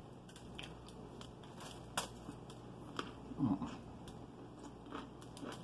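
Close mouth sounds of biting into and chewing a Chicago-style hot dog: scattered soft wet clicks and crunches, with a brief low hum from the eater about three and a half seconds in.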